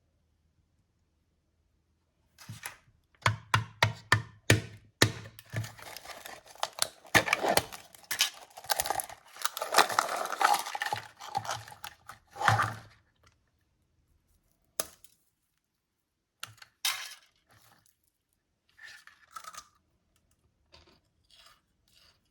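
Plastic snack packaging being torn open and crinkled: after a silent start, a dense run of sharp crackles and tearing lasts about ten seconds, then a few short scattered rustles follow.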